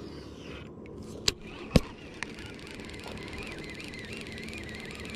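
Baitcasting rod and reel being worked: two sharp clicks about half a second apart, then a faint steady whirring with fine rapid ticking as the reel is cranked.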